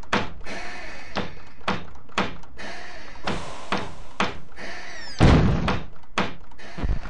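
Small hammers knocking on wooden toys, a steady beat of about two strokes a second. About five seconds in comes one heavier, louder thud like a door shutting.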